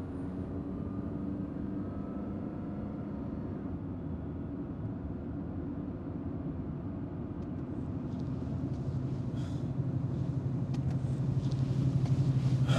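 Steady low rumble of a car driving, heard from inside the cabin. A low hum grows louder over the last few seconds. The tail of background music fades out at the start.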